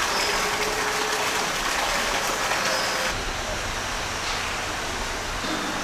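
Steady rushing noise with an abrupt change in its texture about three seconds in.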